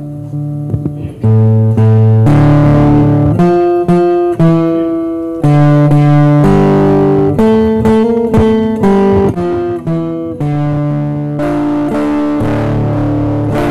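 Instrumental recessional music at the close of a Mass: a slow melody of held notes over sustained chords, growing loud about a second in.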